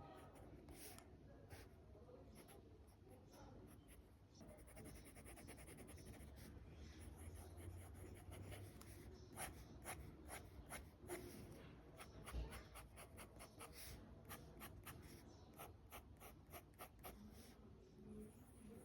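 Pilot Kakuno fountain pen nib writing on paper, quiet scratching strokes that come in a quick run in the second half.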